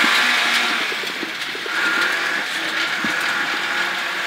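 Rally car at speed on a loose gravel stage, heard from inside the cabin: the engine runs steadily under load over the constant rumble of tyres and gravel, with an occasional knock.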